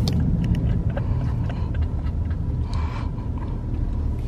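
Low, steady rumble of a Chevrolet car's engine and road noise heard from inside the cabin while driving, with a few faint clicks and a short hiss about three seconds in.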